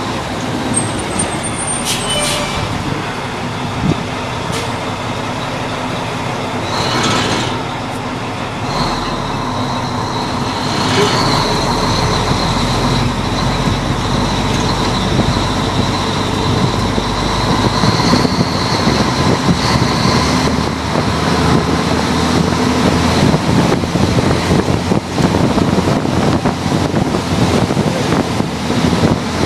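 Vintage open-cab fire truck's engine running as it drives through town, with road noise; a steady high whine runs through the middle stretch, and the noise grows louder and rougher in the second half.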